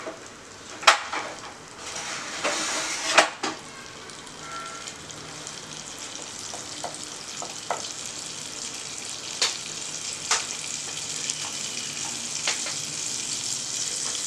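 Butter melting and sizzling in a hot nonstick pan, the sizzle building steadily louder as it starts to foam. A few sharp knocks sound over it, several in the first few seconds and a couple more later.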